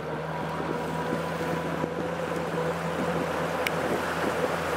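Fishing boat's outboard motor running steadily under way, with water rushing along the hull and wind on the microphone.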